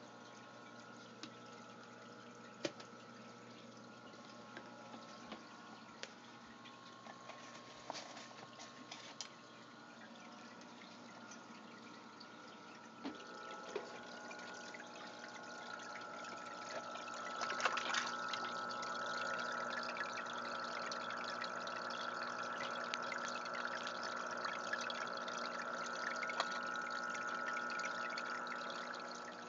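Aquarium water trickling and splashing over a steady hum. Small sharp clicks and pops are scattered through the first half, and the splashing swells about halfway through and stays louder until near the end.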